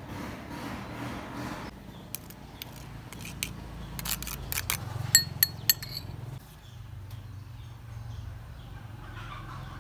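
A stainless hand grater rasping briefly, then a metal spoon scraping and tapping the grater and clinking against a glass bowl: a run of sharp clinks, the loudest ringing out around five seconds in.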